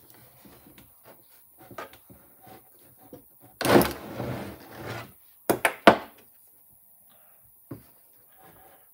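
The metal Mercedes W202 mono-wiper linkage and tools are handled on a wooden workbench. Light clicks and rattles come first, then a loud scraping clatter a few seconds in as the assembly is shifted. A few sharp knocks of metal on wood follow, the last one near the end.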